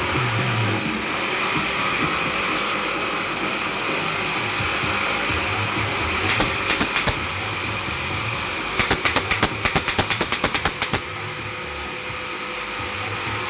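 Workshop machine noise while plywood speaker-box panels are assembled: a steady whirring hum, broken by two runs of rapid sharp clicks. The first run is a brief handful of clicks about halfway through; the second is about fifteen clicks in two seconds a little later.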